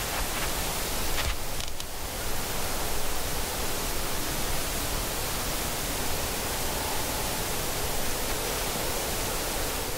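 Steady, even hiss with no clear source, with a brief louder rustle about a second and a half in.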